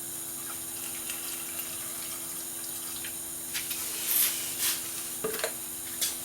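Antifreeze being poured from a jug into the engine's coolant reservoir, liquid trickling and splashing, with a few short splashy bursts in the second half. A faint steady hum runs underneath.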